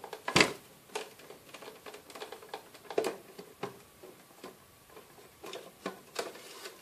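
Plastic housing of a mini hi-fi system being handled by hand: irregular clicks and knocks, the sharpest about a third of a second in.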